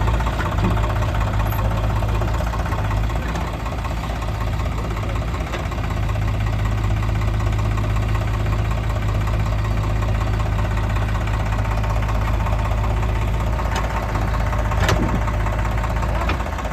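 Heavy diesel engine running steadily at an even speed, with a short sharp click about 15 seconds in.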